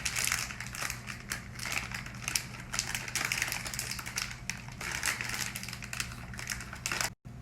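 Packaging crinkling and rustling by hand, with many small clicks and snaps, as a toy box and its wrapped contents are pulled open. The sound drops out briefly near the end.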